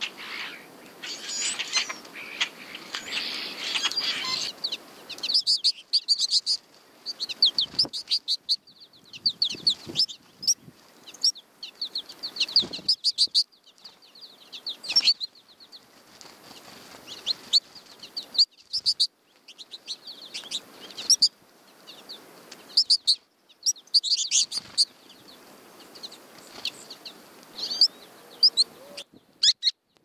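Small songbirds, American goldfinches among them, chirping and twittering close by in quick runs of short high calls, with occasional wing flutters. A louder noisy stretch fills the first four seconds or so.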